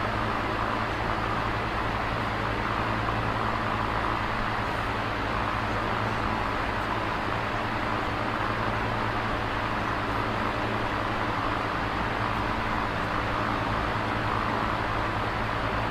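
Steady, unchanging noise with a low hum beneath it; no voice is heard.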